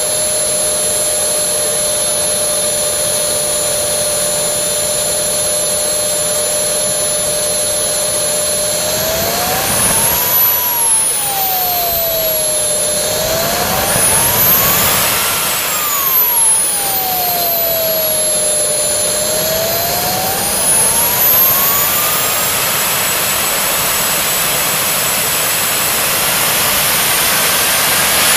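JetCat P80 model turbojet (Kerostart kerosene-start version) running with a steady high whine. From about nine seconds in it spools up and back down twice as the throttle is moved, the whine rising and falling in pitch, then begins to rise once more.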